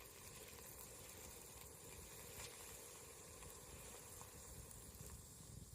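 Near silence: faint outdoor background hiss with a few faint ticks.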